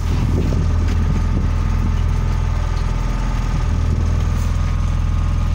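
Fishing boat's engine running steadily, a constant low hum.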